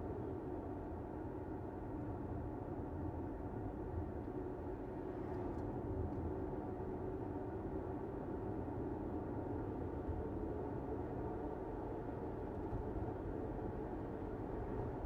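A car driving along a road: steady tyre and road noise with a low hum.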